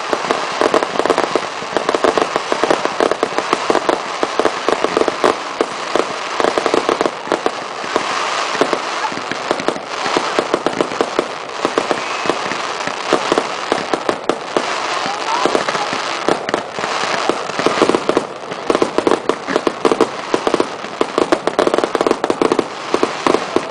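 Fireworks display: a dense, continuous barrage of bangs and crackles, many reports a second.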